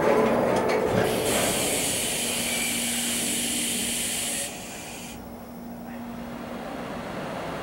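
Compressed air hissing from the air brakes of a standing tank-car freight train, for about three seconds before cutting off sharply, over a steady hum.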